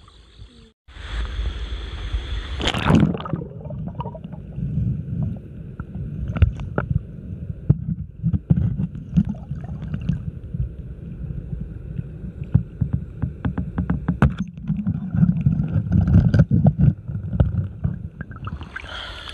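River water splashing, then muffled underwater sound heard with the microphone submerged: a steady low rumble of moving water with many scattered clicks and knocks.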